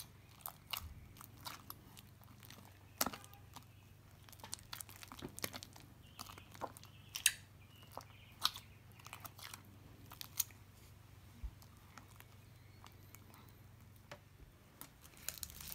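Sticky, bubbly glue slime squelching and popping irregularly as a hand kneads and pulls it, with scattered short wet clicks.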